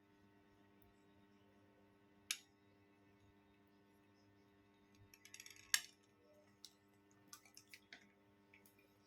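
Faint small clicks and clinks of syringes and medicine ampoules being handled while injection drugs are drawn up and diluted. There is a single click about two seconds in, and a short rattle ending in a sharper click just before the middle. A few light ticks follow, over a faint steady hum.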